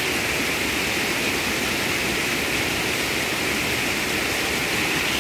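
Fast mountain creek running high, rushing over boulders in white-water cascades: a steady, unbroken roar of water.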